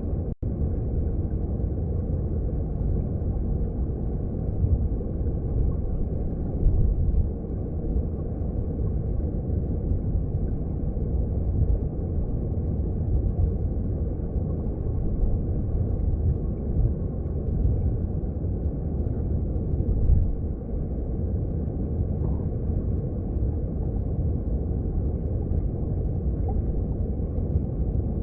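Mountain stream heard underwater through a hydrophone: a steady, deep rumble of rushing water, swelling a little now and then.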